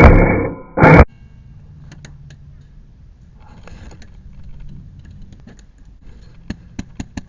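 Loud background music with a steady beat cuts off suddenly about a second in. Quiet outdoor background follows, with faint ticks and a run of sharp clicks near the end.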